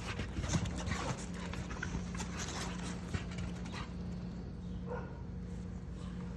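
American bully puppy making funny vocal noises, with a run of short clicks and knocks over the first four seconds.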